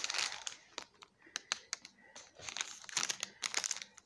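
Clear plastic sticker packets crinkling as they are handled, in two spells with scattered light clicks between.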